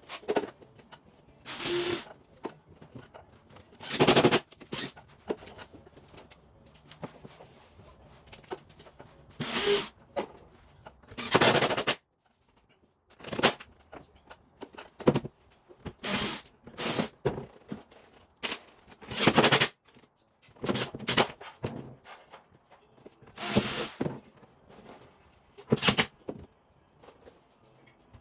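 A series of irregular knocks and short rattling bursts from work on a cabinet over a refrigerator, each lasting well under a second to about a second, with pauses of one to a few seconds between them.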